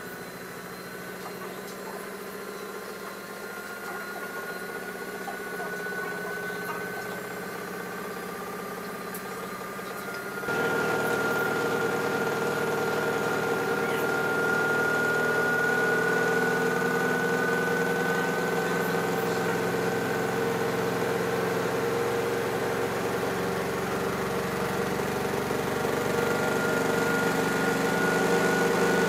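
Hotpoint RD 966J washing machine spinning its drum near the end of a fast wash cycle. Its motor whine slowly rises in pitch, and the sound gets suddenly louder about ten seconds in.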